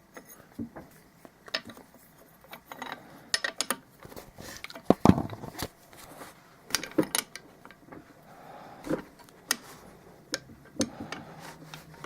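Metal tools and differential parts clinking and knocking: scattered sharp clicks and clanks at irregular intervals, the loudest about five seconds in, as the Corvair differential is worked apart by hand.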